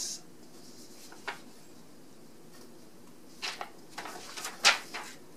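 Sheets of paper being handled and turned over: a faint tick about a second in, then a short run of rustles and crinkles, the sharpest one near the end.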